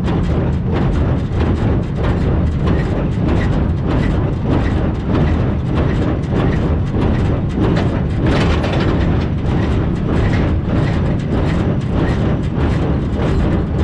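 A tractor engine running steadily under load, driving a Massey Ferguson 1840 small square baler whose mechanism clatters along with it.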